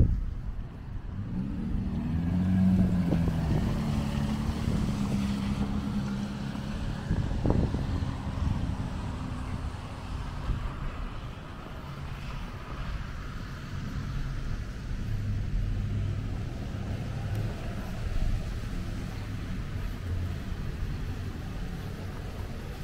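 Downtown street traffic in the rain: a motor vehicle passes with its engine hum loudest in the first several seconds, over a steady low rumble.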